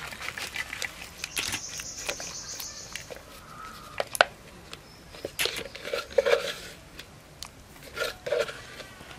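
A heap of small wet mola fish poured out of a plastic container onto a ridged dish, a dense slithering patter of bodies landing and sliding. It is followed by scattered clicks and a few louder knocks and rustles as the pile settles.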